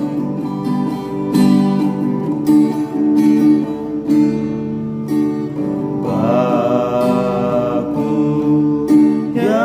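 Acoustic guitar strumming the accompaniment of a gospel song during an instrumental break, with a long held melodic note coming in about six seconds in.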